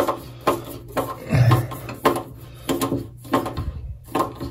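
Screwdriver turning a screw into a chrome bathtub overflow faceplate, with irregular small metal clicks and scrapes as the screw is driven.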